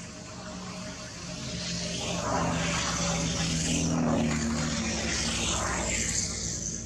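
An engine passing by, a low steady hum with a hiss above it that grows louder over the first few seconds and fades near the end.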